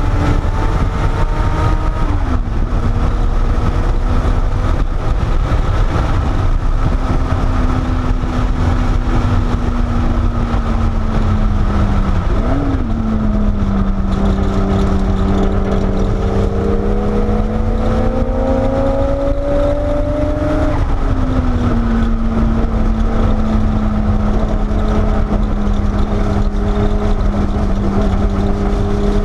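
Porsche 930 Turbo's turbocharged flat-six heard from inside the cabin over heavy road and wind rumble. The engine note holds steady, climbs for about six seconds under acceleration from about 14 s in, then drops sharply about 20 s in at a gear change and settles.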